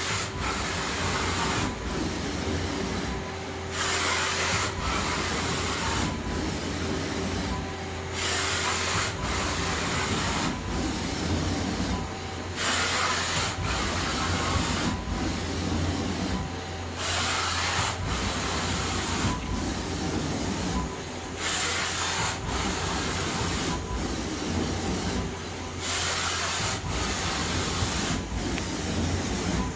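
Samsung SL2500BY CNC lathe moving its axes back and forth at full rapid traverse while the spindle turns at 1,000 RPM. A steady machine hum runs under repeated surges of hissing noise, each lasting one to two seconds, as moves start and stop.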